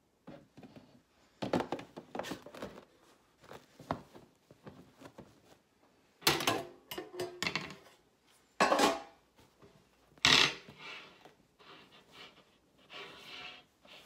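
Metal loaf pans knocking and clattering against the countertop and wire cooling racks as freshly baked loaves are turned out of them, in irregular knocks with a few louder clatters.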